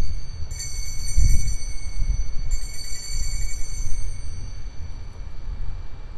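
Altar bells rung at the elevation of the consecrated host: two rings, about half a second and about two and a half seconds in, each ringing out and fading. A steady low rumble runs underneath.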